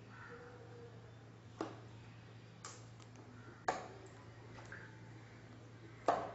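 A cinnamon bittern knocking against a shallow plastic tub as it moves and strikes in it while hunting: five sharp knocks over about five seconds, the loudest near the end, over a faint steady low hum.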